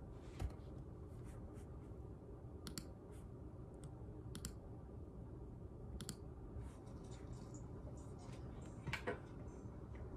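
Faint, scattered clicks, a dozen or so at irregular intervals, over a low steady room hum.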